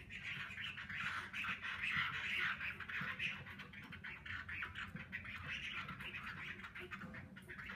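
Caged Chinese hwamei singing a fast, continuous song, loudest about two seconds in and thinning toward the end.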